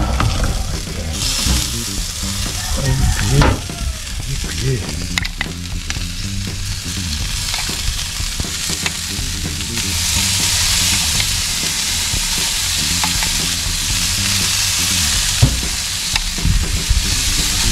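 Sizzling hiss of orange juice glaze being spooned onto a ham on the rack of a hot homemade brick smoker. The hiss swells about ten seconds in and is broken by a few light clicks.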